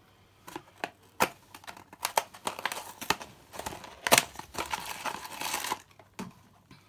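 Cardboard blind box being opened by hand: a few sharp clicks, then the top flap tearing open, and the black plastic bag inside crinkling and crackling as it is pulled out. The loudest snap comes about four seconds in.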